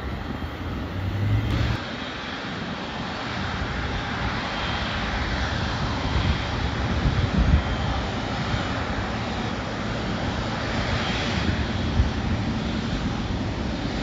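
Twin GE90-115B turbofans of a Boeing 777-300ER running as the airliner rolls past close by: a steady jet rush with a faint high whine, slowly growing louder.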